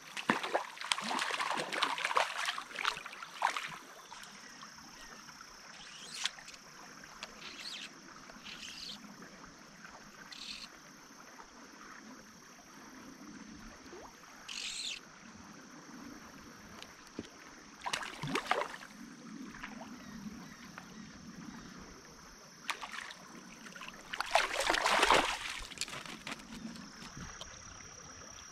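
Water splashing in a small trout stream as a hooked rainbow trout thrashes and is landed. The longest run of splashing comes in the first few seconds, with shorter splashes about eighteen and twenty-five seconds in as the fish is handled in the shallows.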